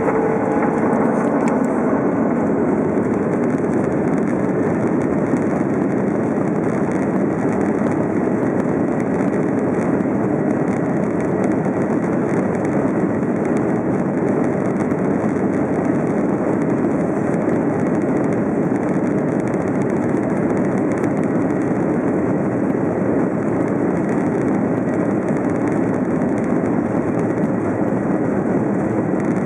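Steady cabin noise inside a Boeing 737-800 moving along the runway, with its CFM56-7B jet engines running and heard through the fuselage near the wing. A faint whine fades out in the first second or two.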